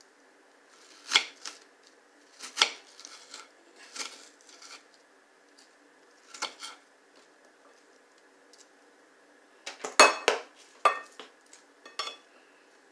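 Kitchen knife knocking on a cutting board while slicing an onion: irregular sharp taps a second or two apart, then a quick cluster of knocks about ten seconds in.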